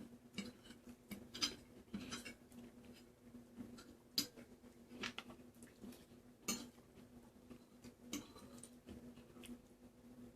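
Scattered quiet clicks and clinks of cutlery against a plate while eating pasta, a few sharper ones standing out, over a faint steady hum.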